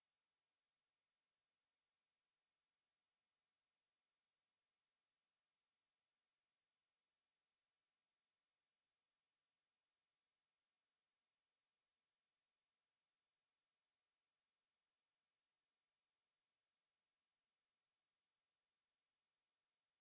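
A single pure 5926 Hz sine-wave test tone, a steady high-pitched whistle held at constant pitch and level.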